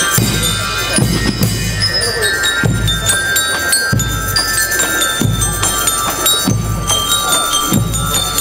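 A school rhythmic band plays a march: bass drum and snare drums keep a steady beat with a low accent about every second and a half, under high ringing bell-lyre notes carrying the melody.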